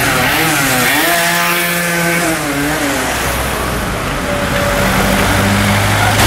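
A motor scooter rides past close by, its small engine's whine rising and then falling in pitch. A car engine runs low in the street near the end.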